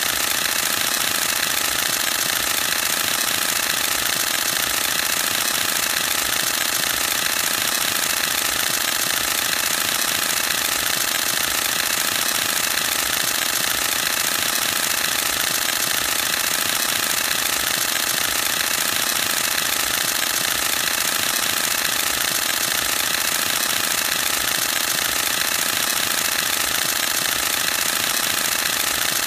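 Canon EOS-1D X Mark II mirror and shutter firing in continuous high-speed burst: a rapid, even, unbroken mechanical clatter of shutter actuations.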